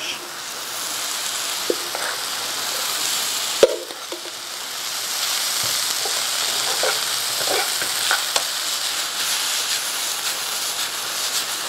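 Pre-cooked white rice and onions sizzling in a hot oiled sauté pan as they are stirred with a metal spoon. A steady frying hiss runs throughout, with scattered clinks of the spoon against the pan and one sharper knock about three and a half seconds in.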